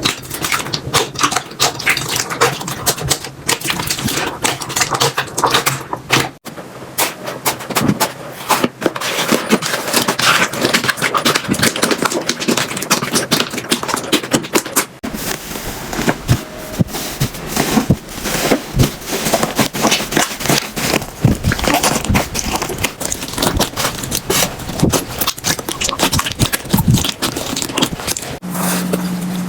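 Slime being squeezed and poked by hand, giving dense crackling and popping clicks. The texture changes abruptly about six seconds in, again about halfway through and near the end.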